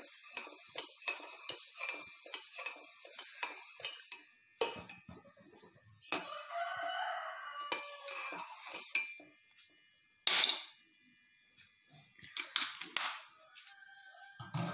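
Metal spoon clinking and scraping against a stainless steel pot while milk curdled with vinegar is stirred, busiest in the first few seconds and again near the end. A rooster crows in the background for a couple of seconds around the middle.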